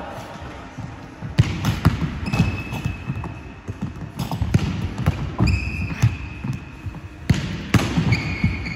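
A futsal ball thudding and bouncing on a wooden sports-hall floor, with thuds of a goalkeeper diving and landing. Irregular sharp knocks about a second apart, and three steady high squeaks of about a second each, from shoes sliding on the floor.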